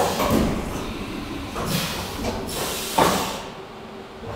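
CNC vertical milling machine running in its enclosure, the spindle moving down: a knock followed by hissing bursts, three of them about a second or so apart, over a steady low machine hum.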